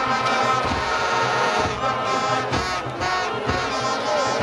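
Music with brass instruments playing.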